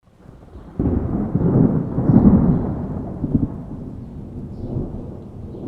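Thunder rumbling: it swells about a second in, is loudest near the middle and rolls away slowly.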